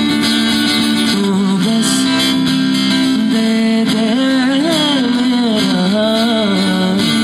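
Live acoustic guitar strummed under a man singing into a microphone, his voice bending and wavering through a long melodic line in the second half.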